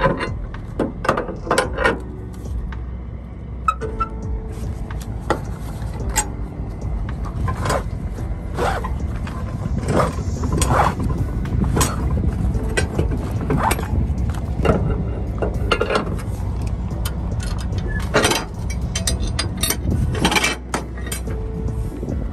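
Flatbed trailer strap winches being worked loose with a winch bar: a string of separate metal clicks and clanks from the winch ratchets, over a steady low rumble.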